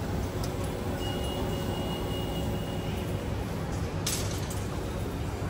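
Drinks vending machine delivery bay with a paper cup of hot Thai milk tea taken out: a faint high steady tone for about two seconds, then a short clack a little after four seconds in, over a steady low rumble of background hum.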